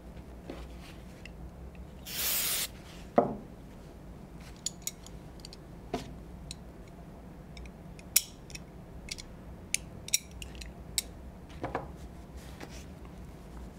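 A brief hiss of an aerosol can of penetrating oil spraying about two seconds in, followed by a sharp click and then scattered light clicks and taps of small metal shotgun bolt parts being handled.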